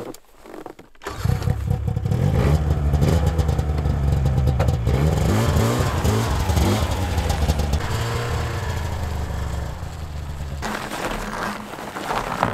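Ski-Doo snowmobile engine running, coming in suddenly about a second in and revving, its pitch rising and falling, then easing off near the end.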